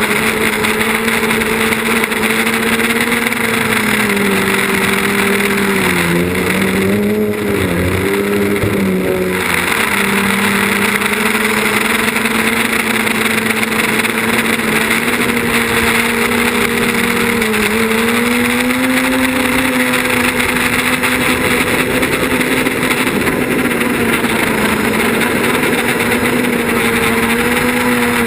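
Quadcopter's electric motors and propellers buzzing steadily in flight over a hiss of air. The pitch dips and wavers a few seconds in, then rises again a little past the middle.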